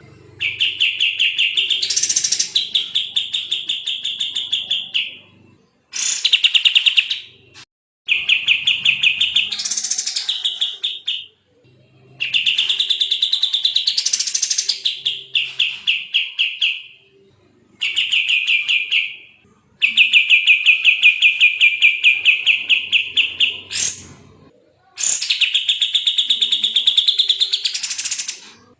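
Kapas tembak songbird singing in full, fast song: a string of rapid, tightly packed trills, each lasting a second to several seconds with short pauses between, some phrases sweeping up higher in the middle or at the end.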